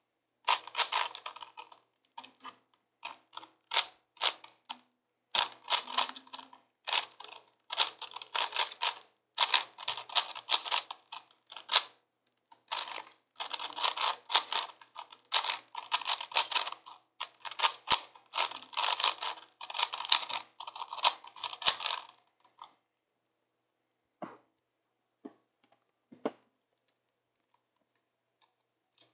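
A 5x5x5 Rubik's cube being turned by hand: rapid bursts of plastic clicking and clacking as its layers are twisted, separated by short pauses. For the last several seconds it is mostly quiet, with a few single clicks.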